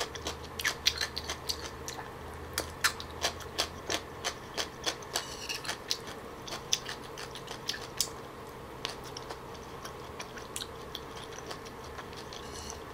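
Close-miked chewing of a piece of yellow pickled radish: irregular crisp mouth clicks and crunches, several a second at first and thinning out later, over a faint steady hum.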